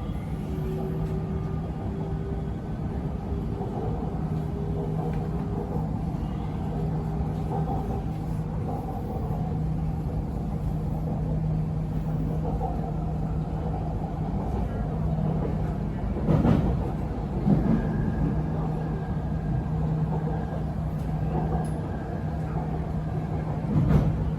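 Inside the car of an MRT Purple Line electric metro train running between stations: a steady rumble with a low hum, and a faint whining tone in the first several seconds. A couple of brief louder knocks come about two-thirds through and again near the end.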